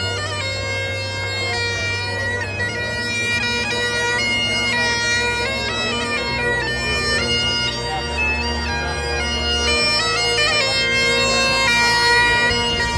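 Great Highland bagpipes played live: steady drones under a chanter melody that steps between held notes.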